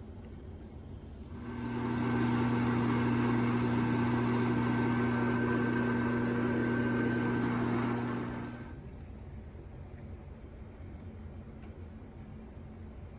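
Small hobby lathe's motor switched on, running at a steady speed with a strong hum, and switched off about seven seconds later.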